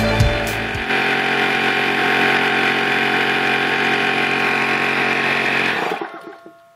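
Porter-Cable PCFP02003 oil-free pancake air compressor running steadily as it fills its 3.5-gallon tank, a dense motor-and-pump noise with a steady hum. About a second in, the tail of background music with a drum beat ends, and near the end the compressor noise fades away.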